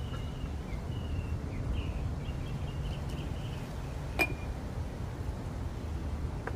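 Birds chirping, with a single sharp clink about four seconds in, over a low steady rumble.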